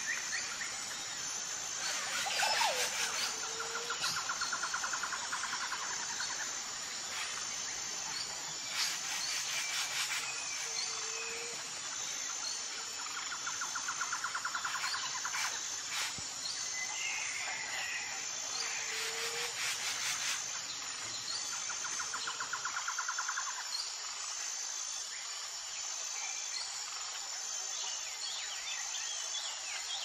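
Wild birds and insects calling: a high insect chirp pulses steadily, while a bird's trill comes back about every eight seconds among scattered chirps and short sliding whistles.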